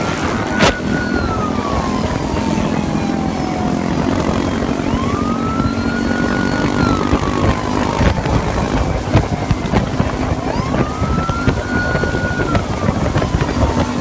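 Police car siren on a slow wail, rising, holding high, then falling, about every five seconds. Under it runs a steady engine hum with wind rushing on the microphone, and there is a single sharp click just under a second in.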